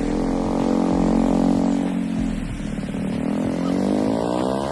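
A motor vehicle's engine running, its pitch dropping and then climbing again.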